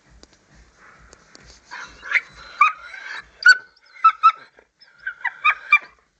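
A dog giving short, high-pitched whines and yips in quick clusters, starting about two seconds in.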